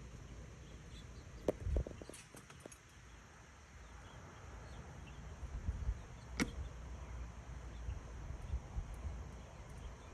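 Faint outdoor background with a low, uneven rumble and a few scattered sharp clicks, about three in the first two seconds and another a little past the middle.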